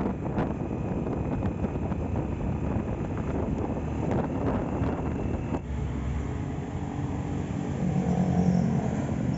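Honda Astrea Grand motorcycle's single-cylinder four-stroke engine running under way, with road and wind noise, on a road test after restoration. The engine note swells for a moment about eight seconds in.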